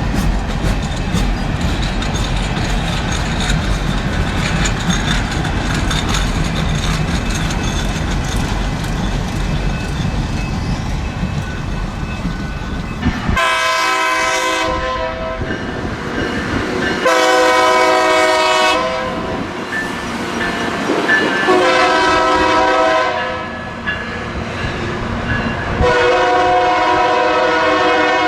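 A train rumbling past with wheels clattering on the rails, then a locomotive air horn sounding four long blasts starting about halfway through, the last still going at the end.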